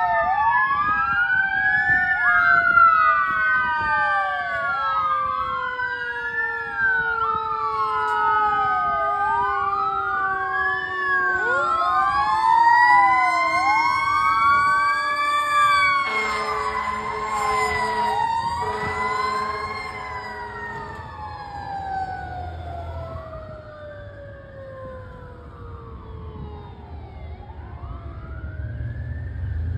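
Fire truck sirens wailing, several overlapping and sweeping up and down, with a slower tone gliding steadily down beneath them. About halfway through, an air horn blares in two long blasts; near the end the sirens fade and a low engine rumble rises.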